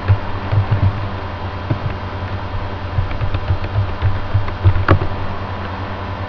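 Typing on a computer keyboard: irregular soft key taps and a few sharper clicks, the strongest about five seconds in, over a steady background hum.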